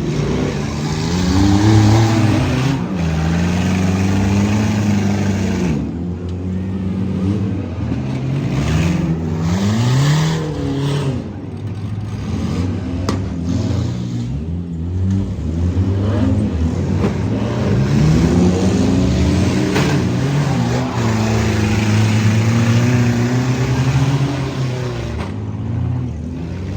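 Several demolition derby cars' engines revving up and down at once, with a few sharp crunches as the cars collide.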